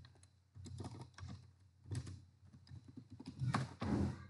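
Typing on a computer keyboard: several short runs of key clicks, the last run near the end the loudest.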